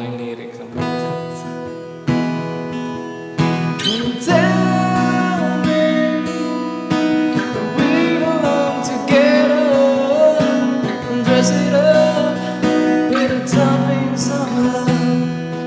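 Acoustic-electric guitar strummed in a steady rhythm, with a voice singing over it from about four seconds in, recorded through a BM800 condenser microphone and V8 sound card.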